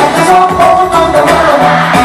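K-pop song performed at a concert: male voices singing over a steady driving beat, recorded loud.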